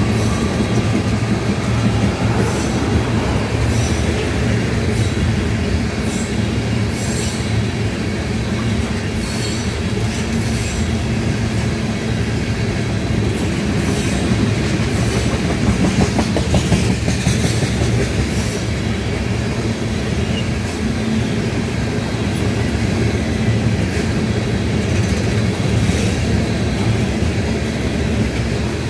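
Tank cars of a freight train rolling steadily past: a constant low rumble of wheels on rail, with sharp clicks and ticks from the wheels and trucks coming now and then, most thickly in the first half, and a faint wheel squeal at the start.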